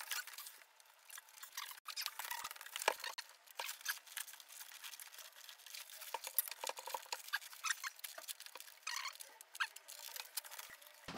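Parts being rummaged and handled by hand: a string of irregular light clicks, taps and rustles.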